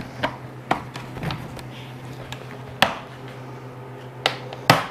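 Irregular sharp plastic clicks and taps, about eight in all and loudest near the end, as the clips of a new inner belt molding (window felt) are pressed and snapped into the edge of an old plastic door panel.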